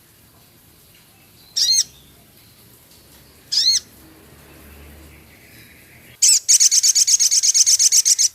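A male sogon songbird singing: two short, sharp high whistled notes a couple of seconds apart, then near the end a loud, rapid run of repeated notes at about ten a second, a rattling chatter.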